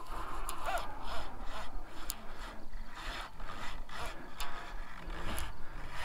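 Shimano Torium conventional reel being cranked against a heavy hooked sturgeon: a grinding rasp of the reel under load, coming in irregular strokes about twice a second.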